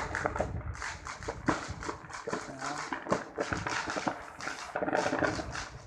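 Fireworks crackling: a rapid, irregular run of sharp pops, several a second.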